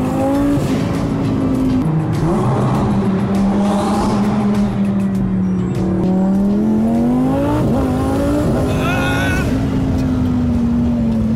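Twin-turbocharged Audi R8 V10 engine heard from inside the cabin while driving, its pitch rising and falling as the car accelerates and shifts gears.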